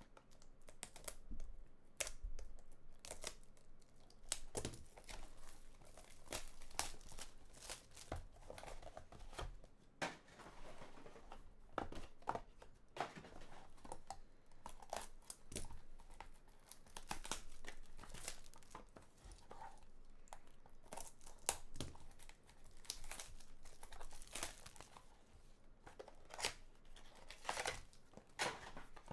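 Trading-card pack packaging being torn open and crinkled by hand, in many short, irregular crackles.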